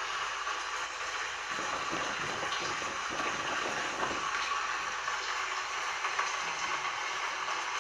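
Heavy rain falling steadily as a dense, even hiss, with a low rumble underneath for a couple of seconds in the first half.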